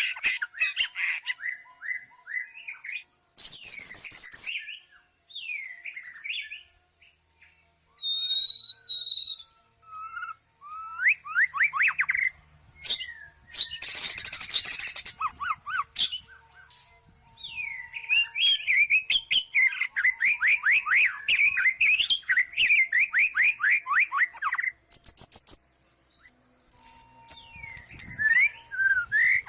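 White-rumped shama (murai batu) singing a loud, varied song of clear whistles and gliding phrases, with a harsh rasping burst about halfway through and a long run of rapid repeated notes after it.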